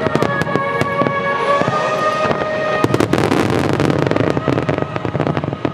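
Wide Starmine fireworks bursting in quick succession with crackle, growing denser about three seconds in, over a song with held notes.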